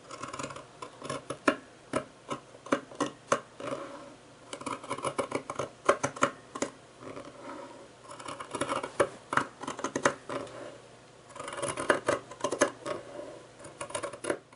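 Scissors cutting through two layers of fleece: a run of crisp snips coming in groups, with short pauses between them.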